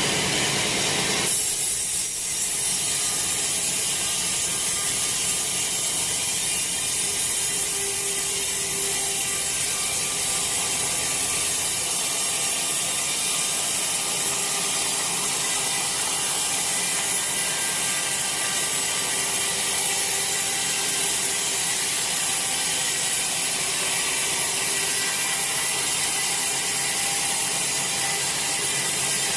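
Sawmill saw cutting lengthwise through a wet teak log, a steady high hissing rasp of the blade in the wood that shifts in tone just over a second in.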